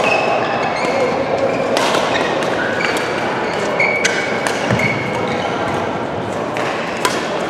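Badminton rally: sharp cracks of rackets striking a shuttlecock every second or two, with short high squeaks of court shoes on the floor and the echoing din of play in a large sports hall.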